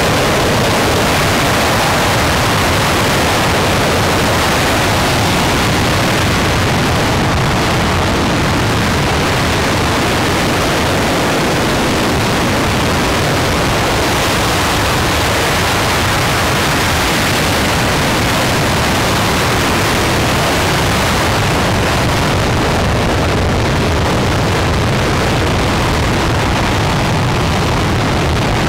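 RS-25 liquid-hydrogen and liquid-oxygen rocket engine firing on a test stand: a loud, steady roar of rushing noise that holds without a break.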